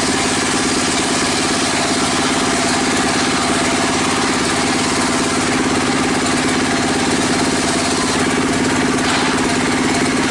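Engine-driven circular saw bench running steadily with a constant hum and a fine even beat while a wooden plank is ripped lengthwise into boards.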